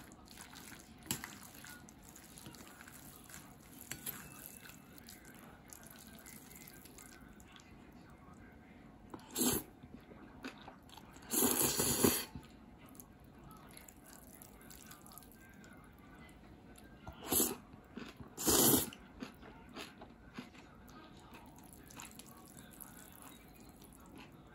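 Chopsticks stirring and tossing chili-sauced thin noodles and kimchi in a ceramic bowl: faint light clicks, with four short, louder noisy bursts around the middle.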